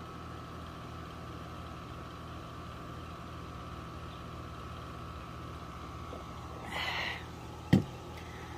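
A steady low mechanical hum throughout. Near the end there is a brief rustle, then a single sharp knock as a stainless drink tumbler is set against weathered wooden boards.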